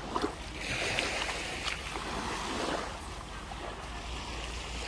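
Sea waves washing on the shore, swelling for a couple of seconds, with wind rumbling on the microphone.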